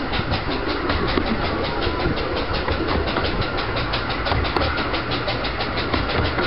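15-inch gauge 2-6-4T steam tank locomotive working hard at speed, its exhaust beating rapidly and evenly at about seven chuffs a second, over a low rumble from the moving train.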